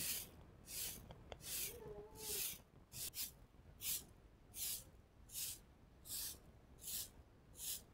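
Short-handled grass broom sweeping a packed-earth floor: a regular series of soft, hissy swishes, about one stroke every three-quarters of a second.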